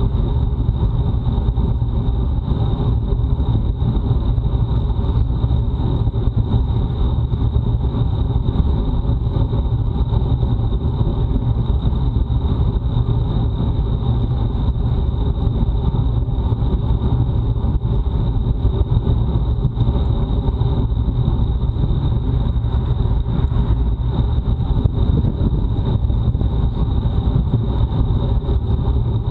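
Wind rushing over a bike-mounted action camera's microphone as the road bike rides at speed: a loud, steady low rumble with a thin steady high tone above it.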